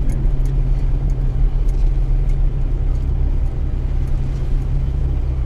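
Mitsubishi Triton's engine running steadily at low speed, heard from inside the cab, with faint knocks and rattles as the truck crawls over rough ground.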